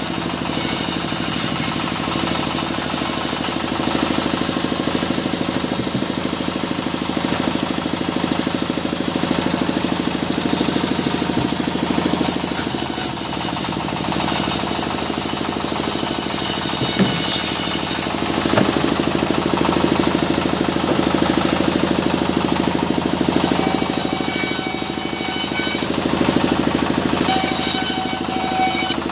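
Sawmill running steadily with a fast, even mechanical pulsing, as its saw cuts mahogany. Several stretches of brighter, higher hiss come and go as the blade bites into the wood.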